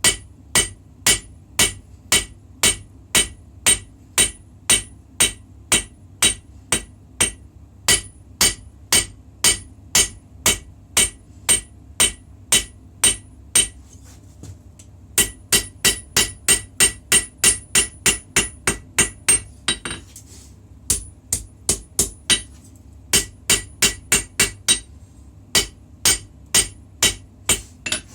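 Hand hammer striking a hot steel puukko blade on an anvil, each blow ringing, in a steady rhythm of about two strikes a second that quickens to about three a second midway, with two brief pauses.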